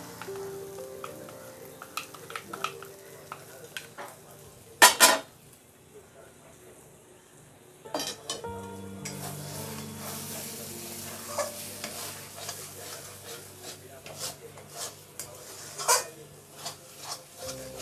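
Flat metal spatula scraping and knocking against a metal kadai while stirring poppy seed paste into frying ridge gourd, with a light sizzle under it. There are scattered knocks, the loudest a sharp double knock about five seconds in, with other strong ones at about eight seconds and near the end.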